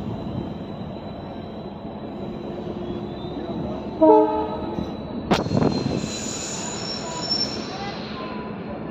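Indian Railways passenger coach running slowly on the rails with steady wheel and track noise. About four seconds in comes a short horn blast, the loudest sound, then a sharp clank and a high-pitched wheel squeal lasting a couple of seconds.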